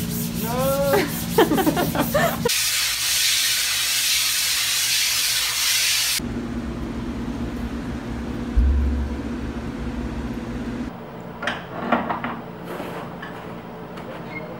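A spoken hello over a steady hum. Then a few seconds of loud, even hissing that starts and cuts off suddenly. After that comes quieter room noise with a single low thump and brief voices near the end.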